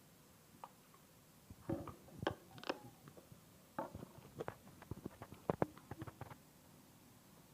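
Homemade slime being squished and worked by hand: a run of short clicks and pops, from about two seconds in to about six seconds in.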